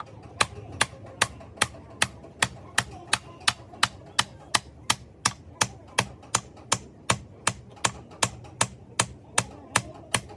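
Hammer striking metal in a steady, even rhythm of about two and a half blows a second, as in roadside work on a truck's broken front axle and leaf springs.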